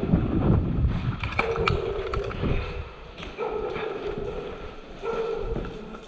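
Footsteps and gear rustle of a player moving across a gritty concrete floor, with handling rumble and a few sharp clicks early on. A short buzz comes three times, about every two seconds.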